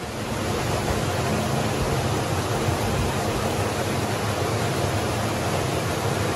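Steady rush of creek water flowing and pouring through a rocky canyon stream.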